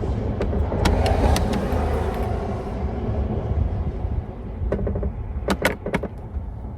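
Small sharp metallic clicks and taps of a spark plug being worked against a spark plug gapper tool, a few at the start and a cluster near the end, over a steady low rumble.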